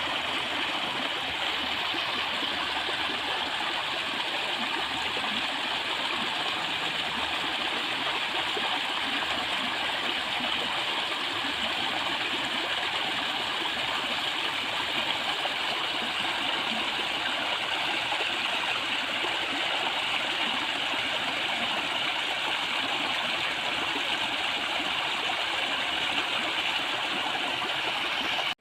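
Steady rush of flowing water, an even noise without breaks or distinct splashes.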